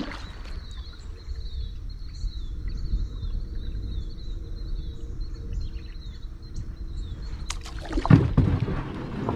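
Kayak moving on water, with a steady low rumble on the camera microphone and a bird repeating a short falling chirp until about three seconds in. About eight seconds in there is a louder knock and scrape as the kayak hits a rock.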